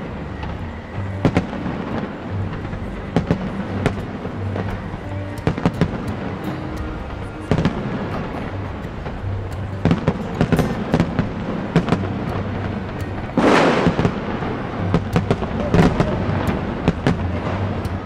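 Aerial fireworks bursting: irregular sharp bangs, sometimes several close together, with a louder, denser burst about 13 seconds in.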